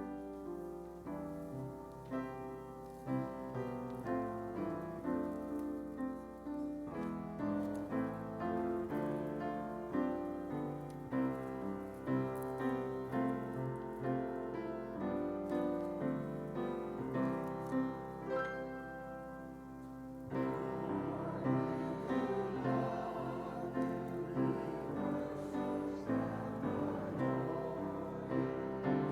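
Piano playing a hymn in steady chords. About twenty seconds in, the sound fills out and grows louder.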